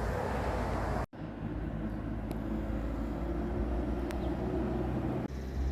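A vehicle engine running steadily at a low hum, cutting out for an instant about a second in.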